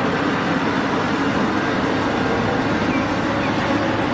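Large Cat 6015B hydraulic mining excavator's diesel engine running steadily as the machine dumps a bucket load of sand into a haul truck.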